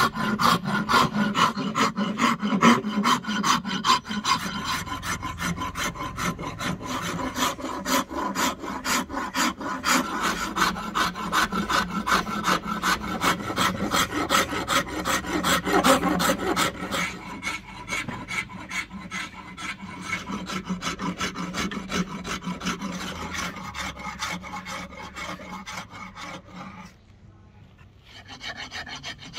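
Flat steel file rasping along the edge of a rosewood axe handle in quick, even back-and-forth strokes. The strokes grow softer past the middle and stop briefly near the end before starting again.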